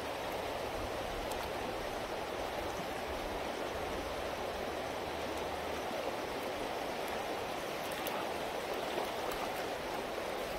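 River current running steadily over a shallow gravel riffle.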